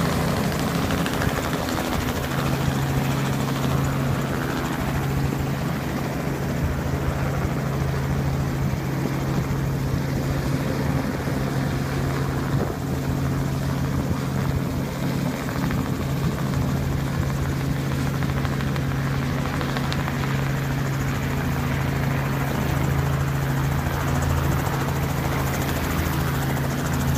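Helicopter in flight, its engine and rotor running with a steady hum and wide rushing noise that hold at an even loudness throughout.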